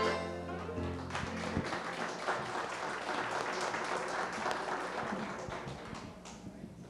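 The final held chord of a gospel song dies away about a second in, then the audience applauds, the clapping fading out near the end.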